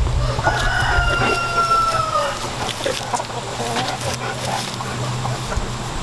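A rooster crows once, a long drawn-out call that starts about half a second in, lasts nearly two seconds and sags slightly in pitch at the end. Chickens cluck around it.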